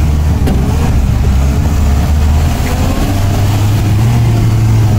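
Engine of a custom-built LuAZ off-roader running under way, with a steady low drone. Its note steps up a little about three seconds in, as it is given more throttle.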